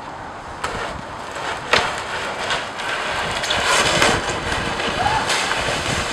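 A couple of sharp knocks, then a red plastic sled sliding and scraping over an iced-over driveway. The rough scraping grows louder about three seconds in as it picks up speed.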